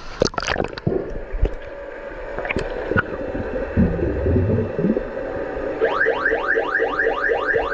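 Camera plunging into pool water with splashes, then muffled underwater gurgling and knocks. About six seconds in, an underwater hockey referee's electronic underwater siren sounds a rapid series of rising chirps, about four a second, signalling a stop in play.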